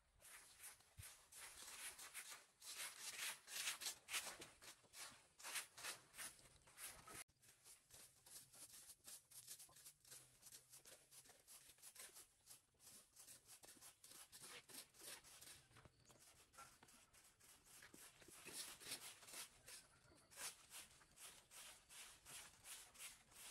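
Faint scratching and scraping of rakes dragging dry leaves and dirt across concrete, in repeated short strokes a few times a second.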